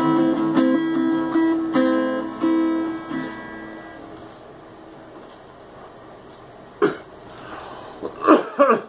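Small Luna acoustic guitar played, its last chords and picked notes ringing out and fading away over the first three to four seconds. Then a man coughs, once about seven seconds in and in a quick run of coughs near the end.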